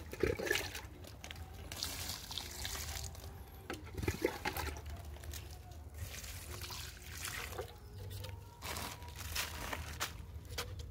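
Root-stimulant solution poured from a small container onto the loose potting mix of nursery pots: several short pours splashing and trickling into the mix, with a couple of handling knocks.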